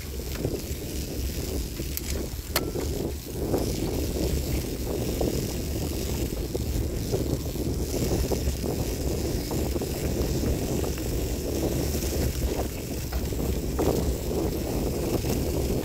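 Bicycle riding over a bumpy grassy dirt track: wind buffeting the handlebar-mounted microphone and the tyres rumbling over the rough ground. There is a sharp click about two and a half seconds in.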